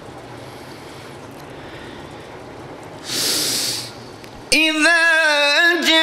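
A Quran reciter draws a loud breath into the microphone about three seconds in, then a second later begins a long held note of melodic Quranic recitation, wavering briefly before settling.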